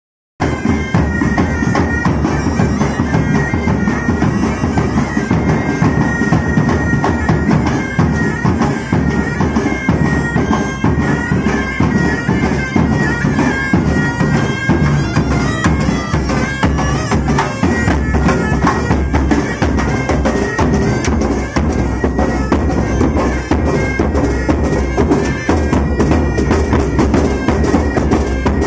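Pipe band of several bagpipes playing a marching tune over their steady drone, with a bass drum beating along.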